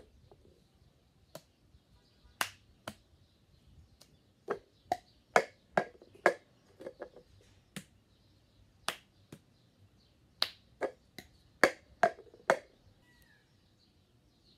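Two plastic cups knocked and set down on a tiled floor, with hand claps, played slowly as a cup-rhythm pattern. It comes as about twenty sharp taps and claps in uneven groups, with no music behind them.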